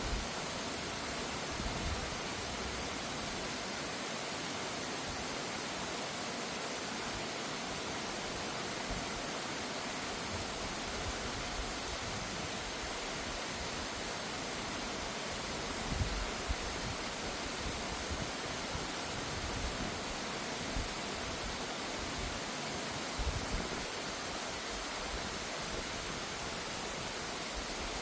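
Mountain valley stream rushing steadily over rocks, an even hiss of water. A few brief low thumps come through about halfway and again later on.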